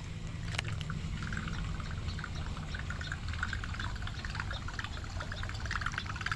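Creek water trickling and gurgling, a busy patter over a low steady rumble.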